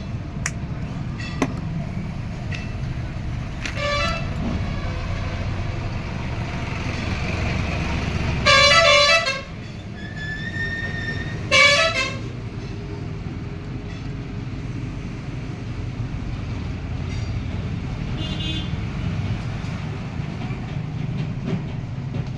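Vehicle horns honking over a steady low rumble of road traffic, several short toots with two loud honks of about a second each near the middle.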